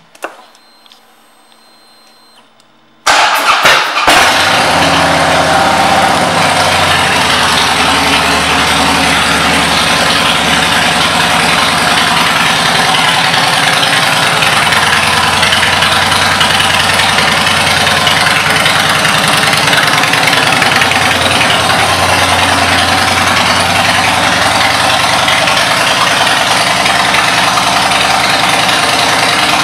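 2007 Harley-Davidson Softail Deluxe's Twin Cam 96B V-twin cranking on the electric starter about three seconds in and catching almost at once, then idling steadily and loudly through Vance & Hines exhaust pipes.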